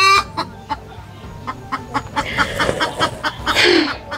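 Chickens clucking, with music playing in the background.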